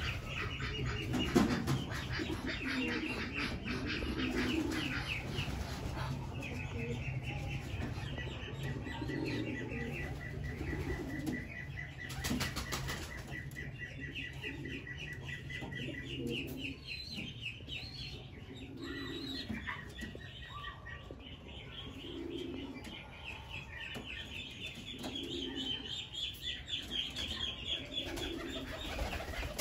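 Domestic pigeons cooing repeatedly, a low coo every couple of seconds, with fast, high-pitched trilling chirps running over it.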